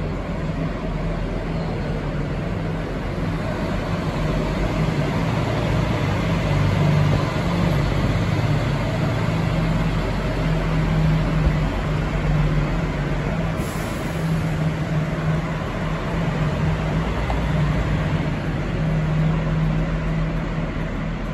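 Diesel engine of a MAN Lion's Coach running as the coach pulls away and drives off, a steady low drone that grows louder in the middle and eases toward the end.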